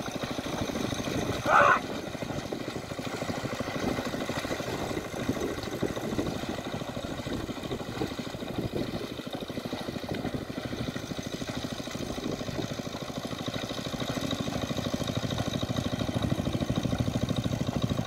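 A small engine running steadily with a fast, even putter, growing a little louder near the end. A person gives one short call about a second and a half in.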